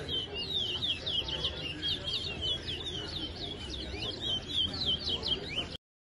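Caged towa-towa finch singing a fast, continuous run of sharp, sweeping chirps over a low murmur of voices; it cuts off abruptly near the end.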